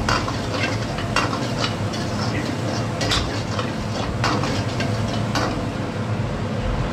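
A steel ladle stirs chopped onions frying in oil in an iron wok, scraping metal on metal about once a second, over a steady low hum. The scrapes stop near the end when the ladle is set down.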